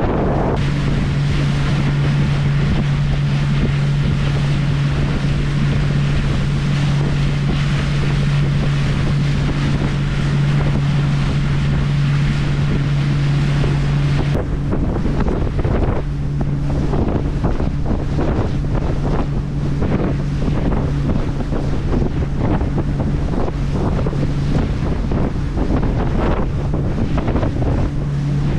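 A boat's engine running with a steady low hum, with wind buffeting the microphone and water rushing past. About halfway through the bright hiss drops away suddenly, leaving the engine hum and gusty wind noise.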